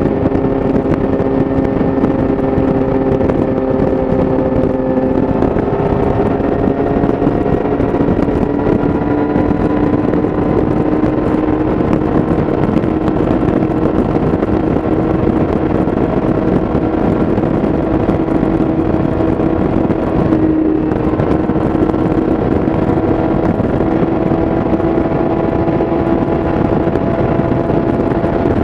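Yamaha YZF-R6's inline-four engine through an Akrapovič exhaust, running at highway speed over a steady rush of wind. The engine note climbs gradually a few seconds in, then holds steady, with a brief break about two-thirds of the way through.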